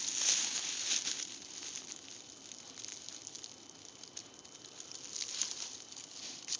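Rustling and crackling in dry leaves or undergrowth, many small crunches close by. It is louder in the first second and again about five seconds in.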